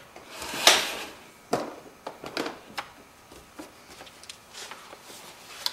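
Handling noise from a plastic laptop being turned over on a workbench: a rubbing swish about half a second in, then a sharp click and a scatter of lighter clicks and knocks of the case against the bench.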